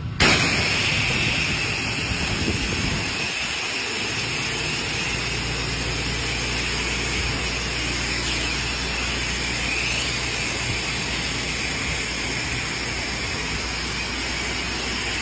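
Pressure washer spraying water in a steady hiss, with the machine's engine running as a low hum underneath. It starts and cuts off suddenly.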